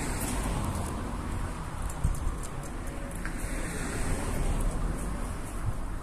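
Outdoor street background: a steady low rumble of wind on the microphone mixed with the hum of distant road traffic, slightly louder for a moment around two-thirds of the way through. No alarm siren or chirp sounds.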